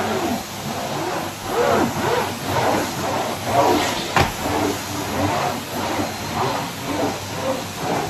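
Numatic Henry canister vacuum cleaner running, its floor tool pushed back and forth over a rug so the suction noise swells and fades with each stroke. A sharp knock about four seconds in.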